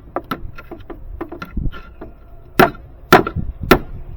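Hammer tapping a climbing-hold anchor into the back of a wooden board, with a second hammer braced against the front. Light taps at first, then three hard blows about half a second apart in the second half.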